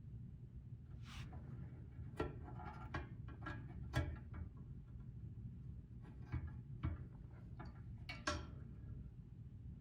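Scattered metallic clicks and taps, some with a short ring, from handling the retaining clips, screws and glass of a cast-iron wood stove door. A steady low hum runs underneath.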